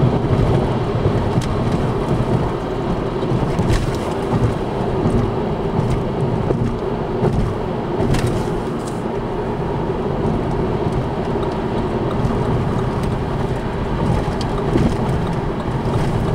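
Steady road noise of a car driving at speed, tyres and engine heard from inside the cabin, with a couple of light knocks about four and eight seconds in.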